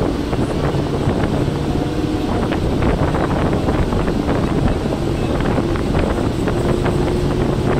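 Steady running noise of a moving train, with wind buffeting the microphone and scattered short clicks.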